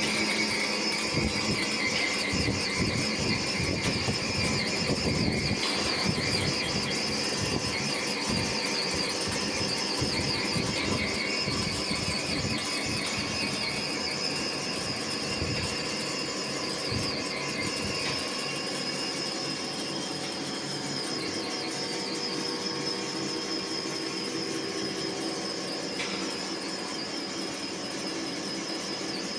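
NC-controlled twin-side four-axis turning machine running, with a steady high-pitched whine over machine noise and an uneven low-pitched clatter that dies away about eighteen seconds in.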